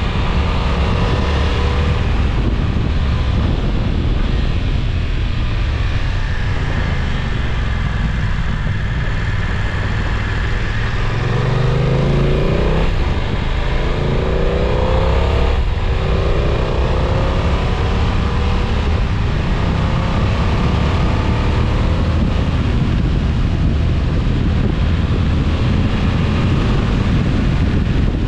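BMW F900XR's parallel-twin engine under heavy wind noise on the microphone, pulling hard through the gears with its pitch rising twice around the middle as the bike accelerates.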